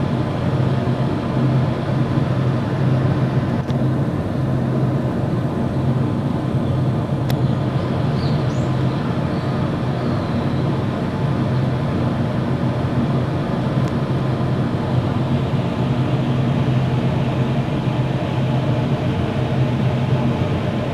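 Steady low droning hum, unchanging throughout, with a few faint short high chirps about eight to nine seconds in.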